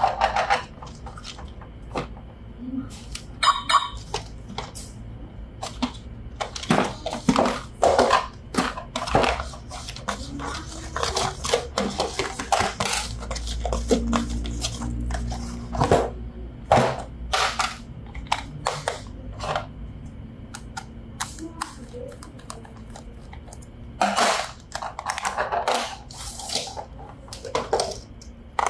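Irregular clicks, clatters and crinkly rustling of hard plastic objects being handled, as when toys and their packaging are unboxed.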